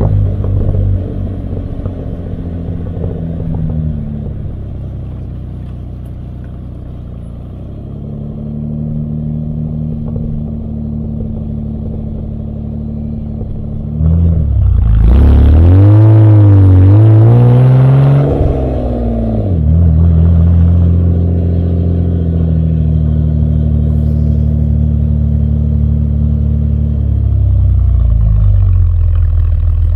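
1971 Opel Commodore A GS's 2.8-litre straight-six, heard close at its twin exhaust pipes while driving. The revs fall at first and the engine runs steadily at light throttle. About halfway through it pulls hard and gets much louder for about five seconds, the pitch rising, dipping and rising again, then settles back to a steady cruise.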